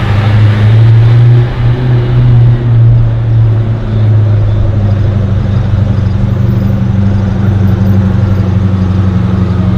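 A car engine running at low, steady revs: a deep, even drone that holds its pitch, with a few brief dips in the first few seconds.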